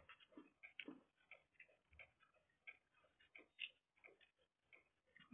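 Near silence with faint, irregular small clicks and smacks of someone eating by hand: chewing and fingers picking food from the plates.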